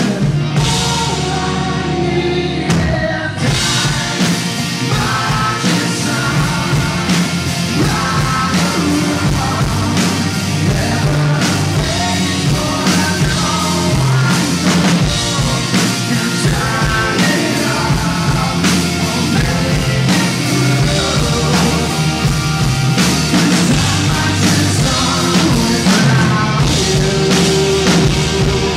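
Live rock band playing: electric guitars, bass and drum kit, with a male lead vocal.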